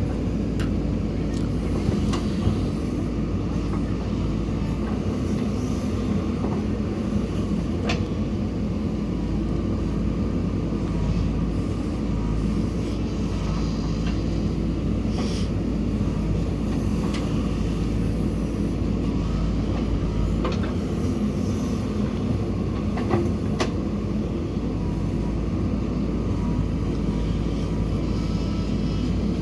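Diesel engine of a backhoe loader running steadily under work, with a few sharp metallic knocks.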